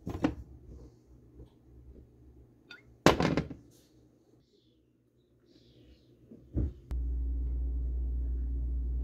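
Knocks and a sharp clatter of kitchenware being handled, then a thud, after which an electric kitchen appliance switches on about seven seconds in and runs with a steady low hum.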